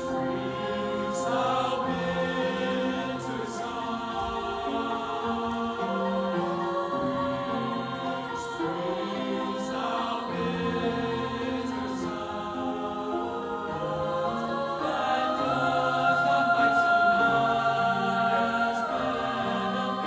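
Choir singing in several parts, holding overlapping notes that move from chord to chord, growing louder about three-quarters of the way through.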